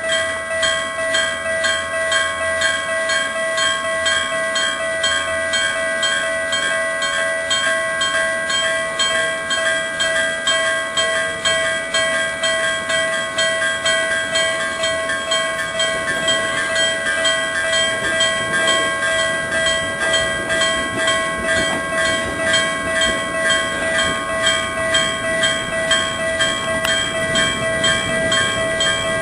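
Japanese railway level-crossing warning bell ringing in a fast, even repeating rhythm throughout, with the rushing noise of a train passing over the crossing in the second half.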